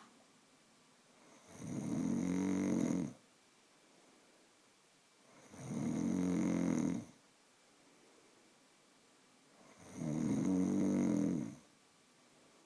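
A woman snoring in her sleep: three snores about four seconds apart, each lasting about a second and a half, with quiet between them.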